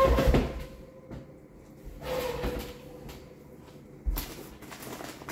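Furniture and tabletop handling as a man sits down at a wooden table: a loud shuffle at the start, then a single sharp thump about four seconds in.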